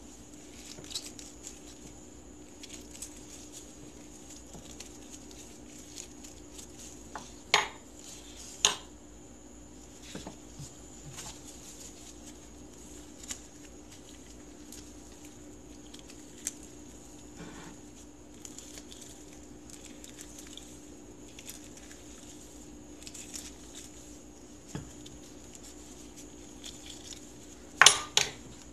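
Metal spoon clinking and scraping against a small ceramic bowl as limes are juiced by hand: sparse light taps, two sharper clinks about eight seconds in, and a louder clatter near the end. A faint steady hum runs underneath.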